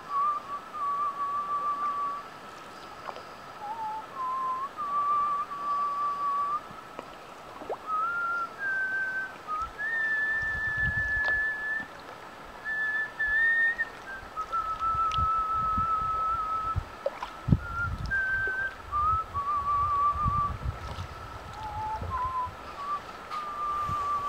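A person whistling a slow tune, one clear note at a time, with held notes and short pauses between phrases. A faint steady high tone runs underneath, and from about ten seconds in there are irregular low thumps.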